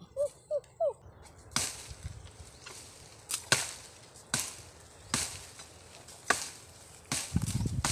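A blade chopping into wood with single sharp strikes at uneven gaps of about a second, starting about a second and a half in, and a denser run of thuds near the end. A quick run of repeated short chirps comes first.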